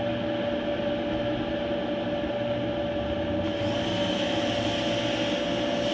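Kenmore/Whirlpool gas dryer running on a test run after new gas valve coils were fitted: a steady motor and drum hum with a constant whine. About halfway through, a steady hiss joins in as the gas burner lights.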